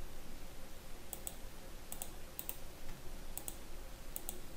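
Computer mouse buttons clicking: about five quick double clicks, each pair a fraction of a second apart, spread over a few seconds.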